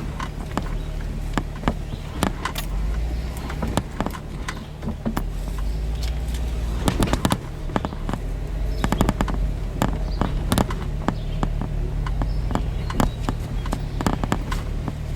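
Jeep engine running at low revs as it crawls a rocky trail, with many sharp cracks and knocks from rocks and branches under the tyres and against the body.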